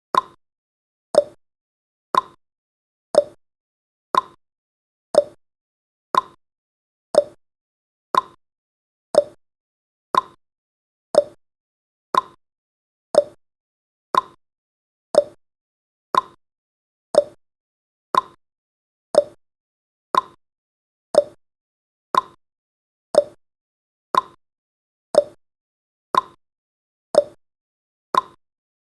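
Countdown timer's tick sound effect: a short, sharp tick once every second, evenly spaced, each dying away quickly.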